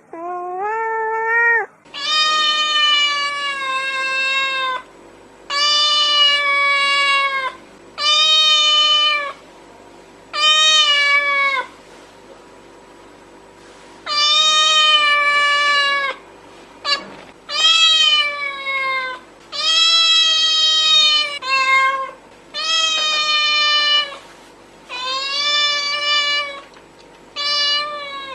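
Domestic cat meowing over and over: about a dozen long, drawn-out meows, each rising and then falling in pitch, with short pauses between them. A brief click about halfway through.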